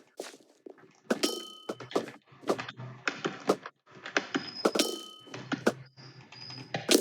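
Computer keyboard being typed on: irregular clatter of keystrokes, some followed by a brief metallic ring.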